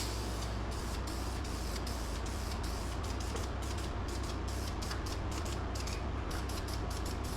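Aerosol spray-paint can spraying engine enamel in a steady hiss, flickering with many short breaks, over a low steady hum.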